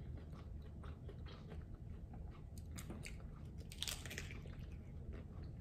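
Quiet chewing and crunching of hard taco shells with scattered faint crackles. A louder crunchy bite comes just before four seconds in.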